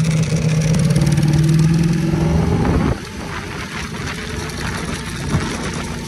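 Modified Ducati V4 superbike's engine pulling under steady throttle, its note rising slightly in pitch. About three seconds in the note drops away sharply and a quieter, rougher engine sound carries on.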